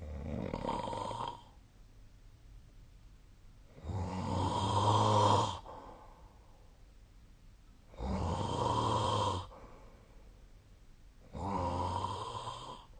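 A sleeping person snoring, four rattling snores about every four seconds, one with each breath, with quiet breathing gaps between; the second snore is the loudest.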